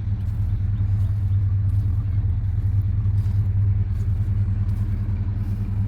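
Car engine idling, a steady low rumble that does not change in pitch.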